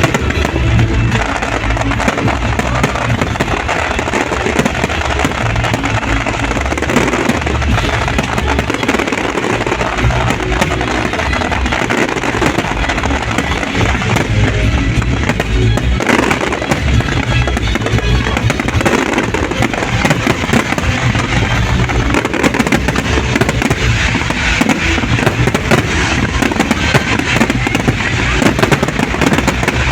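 Fireworks bursting and crackling non-stop in a dense barrage of sharp pops and booms, mixed with loud music.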